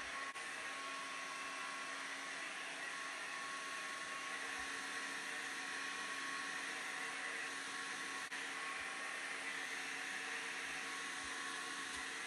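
Handheld hair dryer running steadily, blowing hot air onto a plastic bag covering the hair to warm a hair mask under it.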